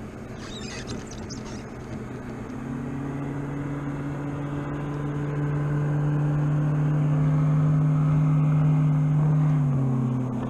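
Motorboat engine droning as a boat approaches, growing steadily louder, its pitch dropping slightly near the end as it slows.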